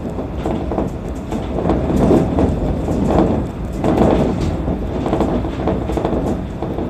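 Shonan Monorail suspended SAFEGE car running along its overhead box-beam track, heard from inside the cab: a steady low running rumble from its rubber-tyred bogies, swelling and easing in loudness, with scattered knocks and rattles as the car shakes.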